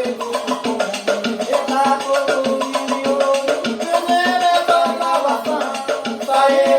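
Instrumental passage of a Brazilian regional folk song: a melodic instrument line over quick, steady hand percussion, with no singing.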